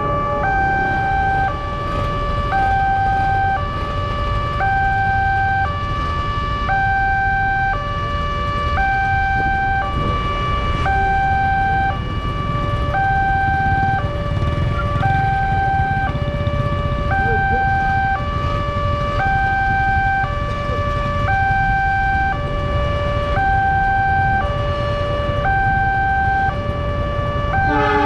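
Railway level-crossing alarm sounding a steady two-tone hi-lo warning, each tone held about a second, while the crossing is closed for an approaching train.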